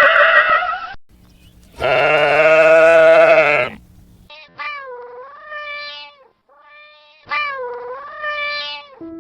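Goat bleating: one long, loud, wavering bleat, then two shorter calls that dip and rise in pitch.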